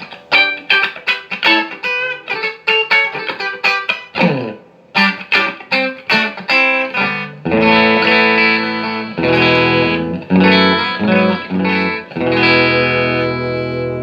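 Electric guitar played through a Marshall JCM2000 DSL201 valve combo amp, being sound-tested after a repair. Quick picked notes and short phrases, with one note sliding down in pitch about four seconds in, then longer ringing chords in the second half.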